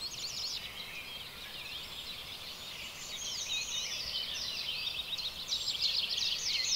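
Birds singing: quick runs of short, high notes sweeping downward, with sparser twittering in the middle and another quick run near the end.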